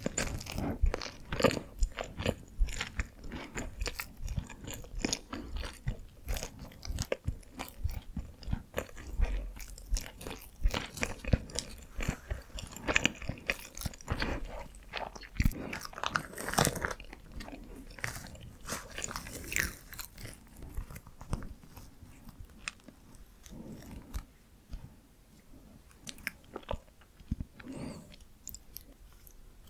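Close-miked biting and chewing of Korean steamed buns (hoppang): a dense run of short mouth clicks and smacks that thins out and grows quieter over the last third.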